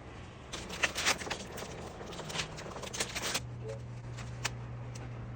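Irregular clicks and scraping from hands-on work, with a steady low hum setting in about three and a half seconds in.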